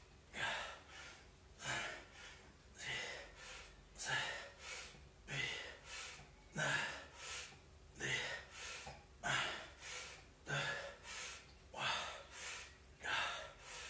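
A man's hard, rhythmic breathing from exertion during a set of inverted rows under a table: short, sharp breaths in and out, about two a second.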